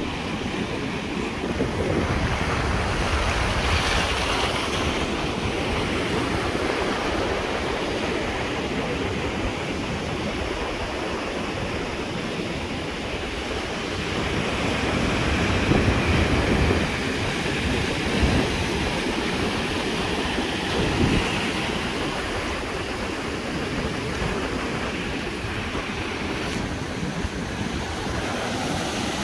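Atlantic surf breaking and washing around a concrete jetty and up a sandy beach, with wind on the microphone. It is a steady rush that swells and falls with each wave, with its loudest surges a little past halfway.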